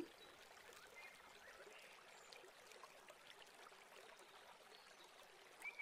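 Near silence: a faint steady hiss, with a faint high chirping tone starting just before the end.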